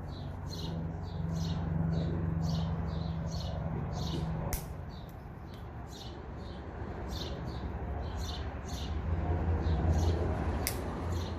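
Two sharp snips, one about four and a half seconds in and one near the end, from cutters trimming the tails of zip ties. Behind them a small bird chirps over and over, two or three short high chirps a second, over a steady low hum.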